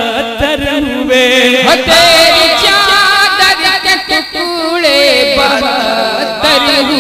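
Naat singing: a voice drawing out long, wavering melismatic notes.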